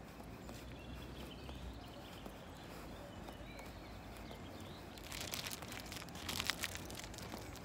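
Footsteps crunching on a fine-gravel path, in a dense run of crackling steps from about five seconds in, over a low outdoor rumble with a few faint bird chirps earlier on.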